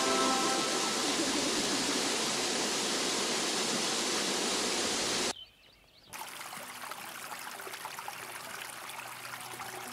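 Rushing water of a waterfall or fast stream, a steady dense hiss; it drops out about five seconds in and returns a second later, quieter and more broken-up.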